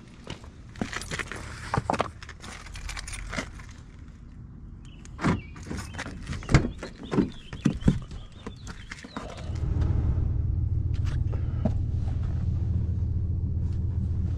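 Clicks, knocks and key jingles as the pickup's door is opened and someone climbs in. About two-thirds of the way through, the Ram pickup's engine starts suddenly and settles into a steady, low idle rumble.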